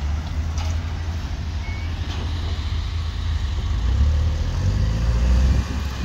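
LiuGong single-drum road roller's diesel engine running with a deep, steady rumble as the machine works over loose earth, growing louder about four seconds in and easing off just before the end.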